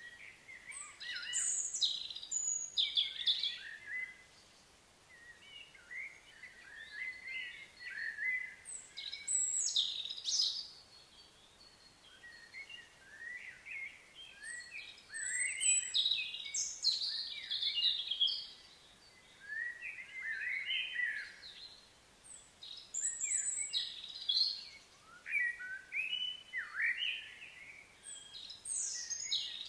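Small songbirds chirping and singing in runs of quick, high, sliding notes, with brief lulls every few seconds.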